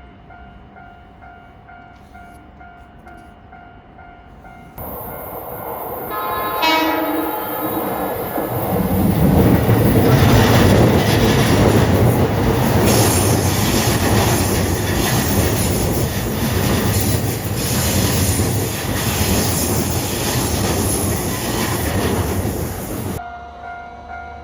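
A Japanese railroad crossing's warning bell dings in a steady rhythm. About five seconds in, a train's noise starts suddenly, with a short horn blast. The train then passes close with a loud rumble and rail noise for about fifteen seconds. It cuts off suddenly, and the crossing bell is heard again.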